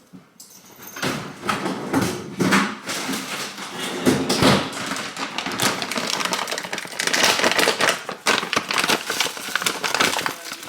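Kitchen clatter: a rapid run of light taps, knocks and rustling as things are handled and set down on a counter.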